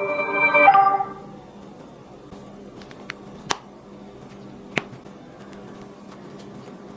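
A short electronic chime of several held tones, ending about a second in, followed by a few sharp clicks over a faint steady hum.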